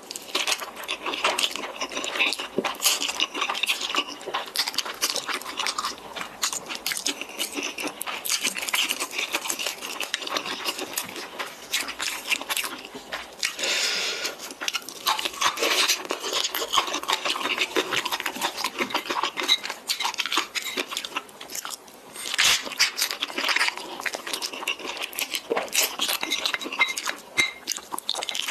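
Person eating spicy instant noodles close to the microphone: continuous wet chewing and mouth noises, dense with small clicks.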